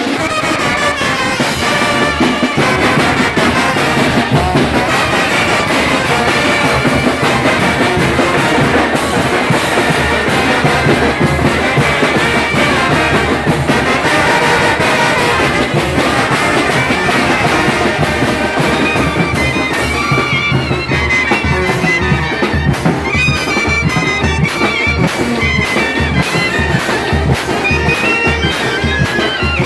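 A brass band playing Mixtec festival music, with a steady beat carried low underneath.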